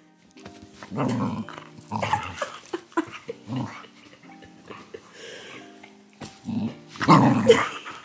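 Cocker spaniel puppy vocalizing close to the microphone in about six short bursts, the loudest near the end, over faint background music.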